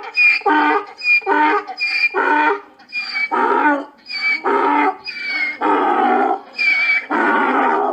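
Donkey braying: a run of about seven hee-haws, roughly one a second, each a short high squeal followed by a longer rough lower blast. The braying stops abruptly at the end.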